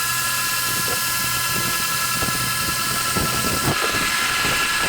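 Electric power sander running steadily under load on deck boards, a continuous high whine over a hiss.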